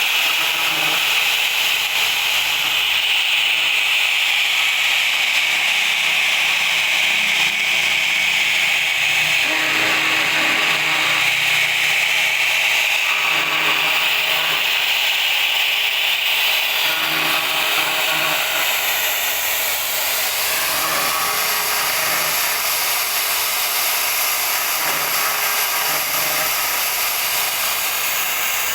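CNC router spindle carving marble, a steady cutting noise with a thin high whine joining about two-thirds of the way through.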